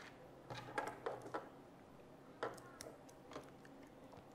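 Light plastic clicks and taps of Beyblade spinning-top parts being handled and fitted together on a table, a few scattered small knocks.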